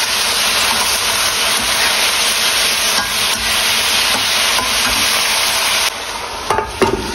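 Sliced angled loofah sizzling in sauce in a nonstick wok while a metal spatula stirs and scrapes it. The sizzle drops about six seconds in, and a couple of sharp knocks of the spatula on the pan follow near the end.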